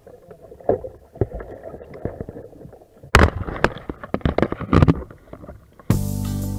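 Muffled underwater gurgling and knocks at a submerged kayak-mounted camera, then loud splashing and sloshing water about three seconds in as the camera breaks the surface. Music comes in near the end.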